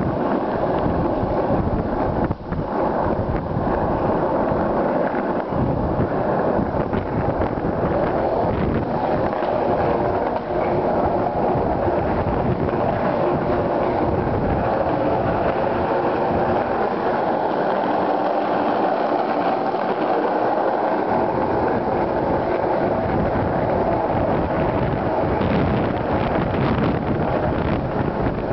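Skateboard wheels rolling fast and without a break on a parking garage's concrete, a steady roar, with wind buffeting the microphone.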